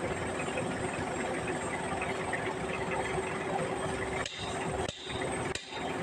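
Forklift engine idling steadily, a constant mechanical running sound with a faint steady hum.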